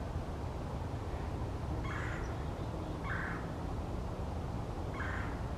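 Red-bellied woodpecker giving three short calls, about two, three and five seconds in, over a steady low background rumble.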